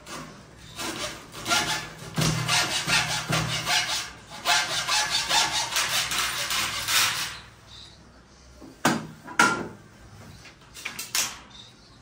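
Hand hacksaw cutting through a wooden strip in rapid back-and-forth strokes, stopping about seven seconds in. A couple of sharp knocks follow about two seconds later.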